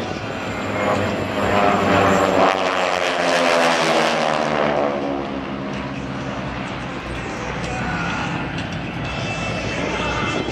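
Propeller aircraft engines of a four-plane formation of North American T-6 Texans flying past, loudest a couple of seconds in, the pitch dropping as they go by, then a steadier, quieter drone as they climb away.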